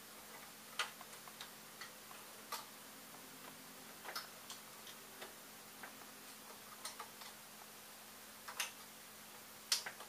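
Light, irregular clicks and taps of plastic 3D-printer carriage parts being handled and fitted by hand, the loudest couple of clicks near the end, over a faint steady hum.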